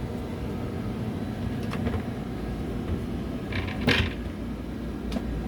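Galley pantry or cabinet door being handled, with light clicks and one sharp knock about four seconds in, over a steady low hum.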